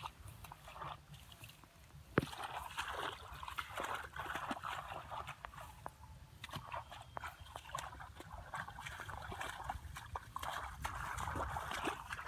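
Hands and bare feet sloshing and splashing in shallow muddy water, in irregular bursts of wet sound, with a sharp click about two seconds in.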